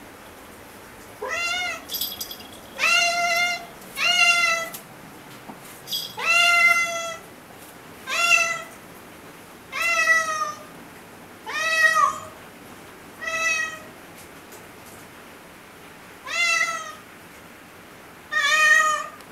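Calico house cat meowing over and over, about ten loud meows one to two seconds apart, each rising at the start and then held. The cat is frightened by a sudden thunderstorm.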